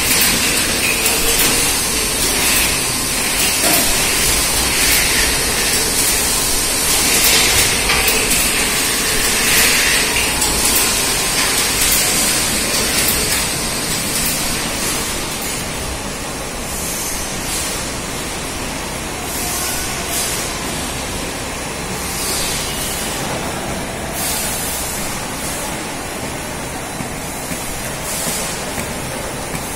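Bottling-line machinery of a packaged drinking water plant running: a steady mechanical noise with frequent short hisses, which thin out about halfway through.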